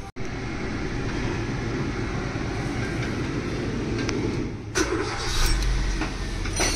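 A car engine running steadily, with a few sharp clicks about two-thirds through as the low rumble grows louder.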